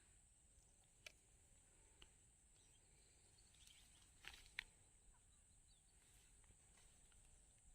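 Near silence: faint outdoor ambience with a steady thin high-pitched hiss and a few faint clicks.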